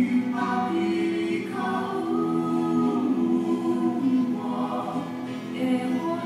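Hawaiian song with several voices singing together in harmony, holding long notes that change about once a second.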